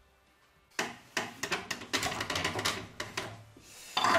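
Wooden workpieces handled on a workbench: a quick run of clicks and knocks of wood on wood, with a louder knock and scrape near the end.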